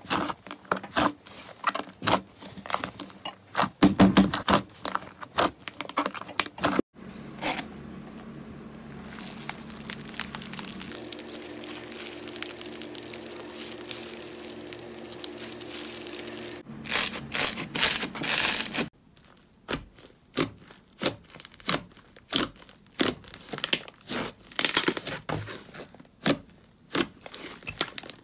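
Hands squeezing and stretching slime: rapid, irregular sticky clicks and pops from squished fluffy slime, with a steadier crackling hiss through the middle while a clear slime full of foam beads is pulled apart.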